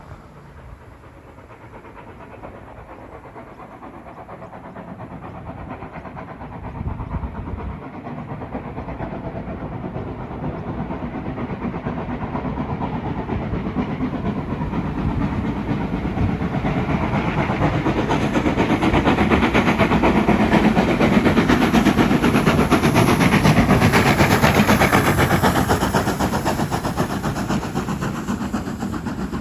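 NSWGR 3526, a 35-class 4-6-0 steam locomotive, working hard under load with rapid exhaust beats. It grows steadily louder as it approaches, is loudest about three-quarters of the way through as it passes, then begins to fade.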